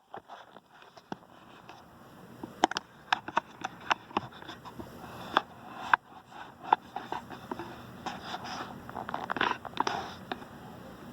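Plastic action figures being handled and fitted together, a He-Man figure being put onto a Stridor robot-horse figure: scattered sharp clicks and taps of plastic, with a stretch of rubbing and rustling about eight to ten seconds in.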